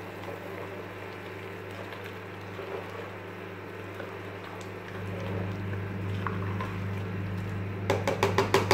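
Chicken, onion and tomato in water boiling in a steel stockpot, a steady bubbling over a low hum, while a spatula stirs the pot. Near the end there is a quick run of clicks and knocks as the spatula strikes the pot.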